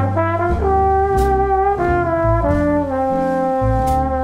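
Trombone playing a slow melody of long, smoothly joined held notes over sustained low bass notes.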